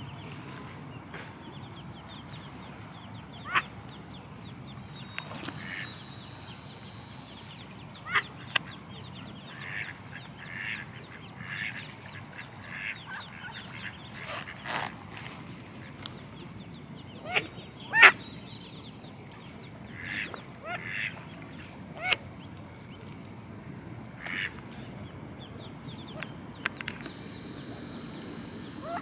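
Mallard hen quacking in short, separate calls at irregular intervals, the loudest a little past the middle.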